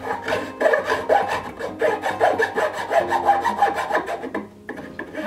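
Thin safe-edge file rasping back and forth in quick, short strokes against the wooden body of a transitional plane, opening up the mouth so the blade will fit through.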